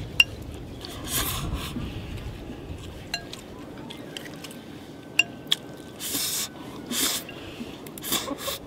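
A person slurping mouthfuls of stir-fried fire-chicken instant noodles, several short loud slurps with the longest about six seconds in, between a few sharp clicks.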